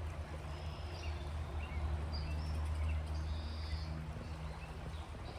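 Wild birds chirping and calling in short, scattered notes over a steady low rumble of outdoor ambience.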